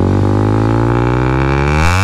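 Yamaha XSR 155's single-cylinder engine held at high revs through an SC Project CRT slip-on exhaust, giving a loud steady drone whose pitch shifts near the end.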